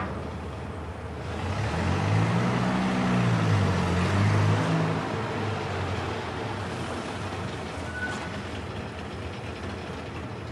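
A motor vehicle passing: engine and road noise swell over the first few seconds, with the engine pitch rising and falling, then slowly fade away.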